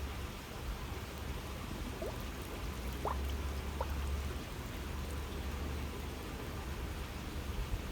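Water trickling and babbling steadily along a narrow waterway, with a few small plinks of drops or splashes about two, three and four seconds in.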